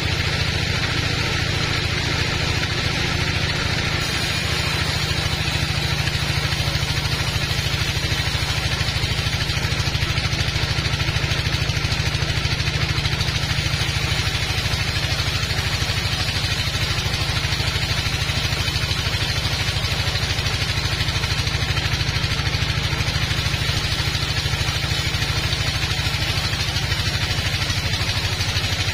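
Sawmill band saw ripping through a teak log, a steady low mechanical drone from the machine's drive with the hiss of the blade cutting wood over it.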